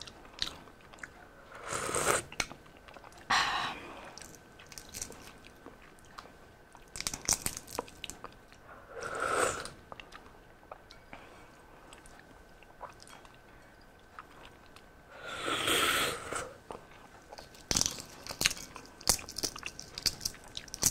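Balut eggshell being cracked and picked away with the fingers: many small sharp clicks and crackles of breaking shell. A few louder eating sounds, each under a second, rise over them.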